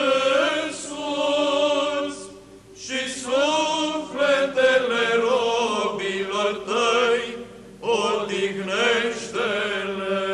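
Male choir of Romanian Orthodox cantors singing Byzantine chant in Romanian: a moving melodic line drawn out over a steady held low drone (the ison). It breaks off briefly twice, about two and a half and eight seconds in.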